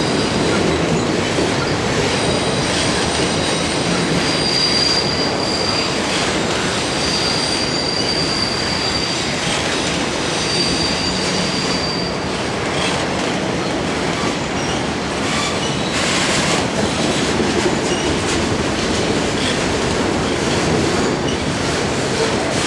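Freight train cars, a mixed and auto-rack consist, rolling past with a steady rumble and rattle. High-pitched wheel squeal rises over it from about four seconds in and dies away around twelve seconds.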